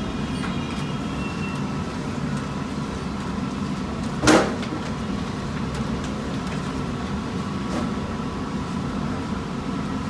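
Steady low rumble of a busy frying station and street, broken once about four seconds in by a brief, sharp metallic clank, a large perforated frying skimmer knocking against the rim of the wide jalebi frying pan.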